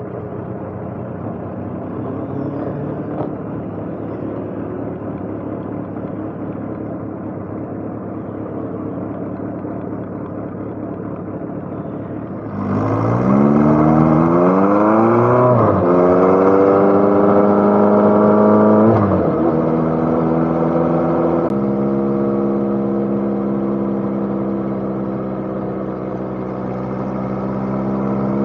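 Motorcycle engine under way, running steadily at first. About halfway through it gets louder and the pitch climbs, drops sharply at a gear change, climbs again and drops at a second upshift, then settles into steady cruising.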